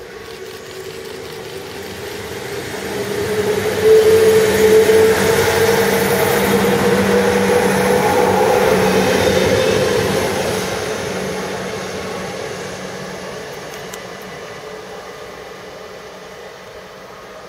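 DM90 diesel multiple unit passing through: its diesel engine drone and a steady whine build as it approaches, are loudest as it passes close by about four to ten seconds in, then fade as it moves away.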